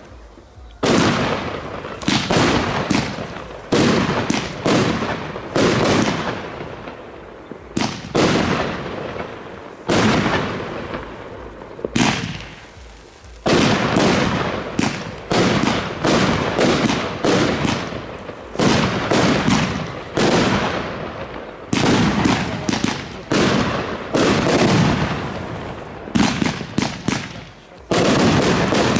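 Consumer firework batteries (Blackboxx Ladykiller, joined near the end by Piromax Fireball XXL) firing shot after shot. The bangs come about one a second, each dying away over about a second, with a short lull about twelve seconds in.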